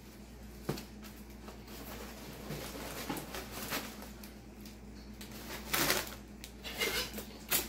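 Someone handling things: faint rustling with a few sharp clicks and knocks, the loudest near the end, over a low steady hum.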